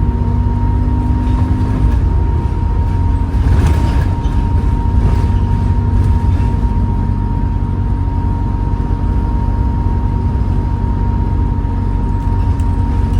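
Bus diesel engine pulling along with a low rumble, and a steady high whine over it from the bus's worn ZF automatic gearbox and turbocharger.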